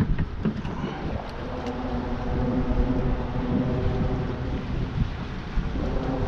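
A motorboat's engine running steadily as the boat moves through the channel, a low hum that comes in about a second and a half in, over a rumble of wind on the microphone. A few light knocks near the start.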